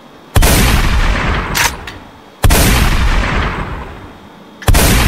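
Three shotgun shots about two seconds apart, each loud and sudden with a long fading echo. A short, sharp click comes between the first two.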